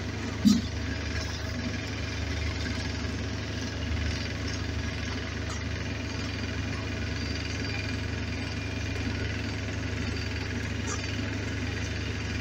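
An engine idling with a steady low hum throughout. About half a second in, a short loud sound stands out above it.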